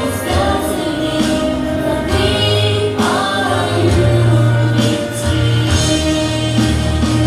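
A song with instrumental accompaniment and a group of voices singing together.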